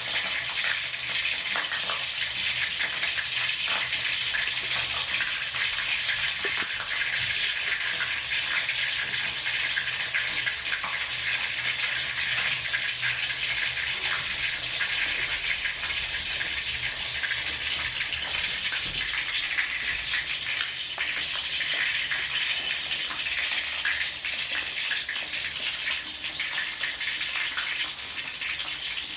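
Whole fish and garlic cloves sizzling in hot oil in a wok: a steady, dense hiss with scattered small crackles.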